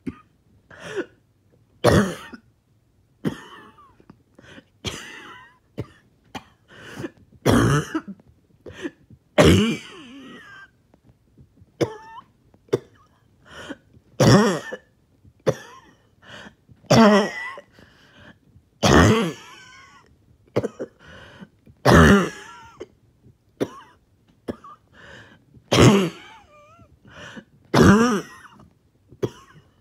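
One person coughing over and over, a hard cough every few seconds with smaller coughs and throat clearing in between. It is a choking cough with trouble breathing, brought on by exercise.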